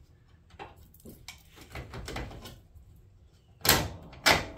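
Light metal clicks and scraping as a bolt is worked through the steel spring arm and its bracket on a Werner attic ladder, then two sharp metal clunks about half a second apart near the end.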